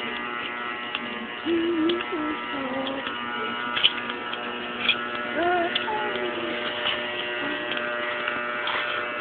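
Steady electrical buzz made of many tones at once, with brief voice sounds about one and a half seconds and five and a half seconds in, and a few sharp clicks.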